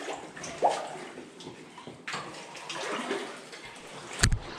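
Water sloshing and splashing around legs in waders wading through deep water in a flooded tunnel, with one sharp knock about four seconds in.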